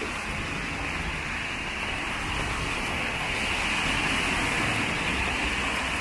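Steady hiss of rain and traffic on a wet city street, swelling a little in the middle.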